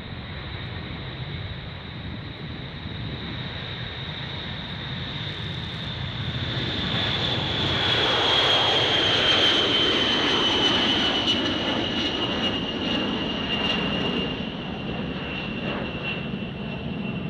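Boeing B-52 Stratofortress's eight jet engines at takeoff power as the bomber lifts off and passes: a loud roar with a high whine that slides slowly down in pitch. The sound swells to its loudest about eight seconds in and eases off toward the end.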